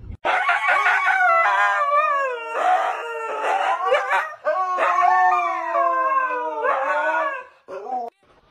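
A husky howling: long, wavering howls that slide up and down in pitch, breaking off about seven and a half seconds in, with one short howl just after.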